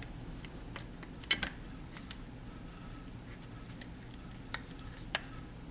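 A few sharp, isolated clicks of Glock pistol parts being handled during reassembly, the loudest a close pair about a second in, over a low steady hum.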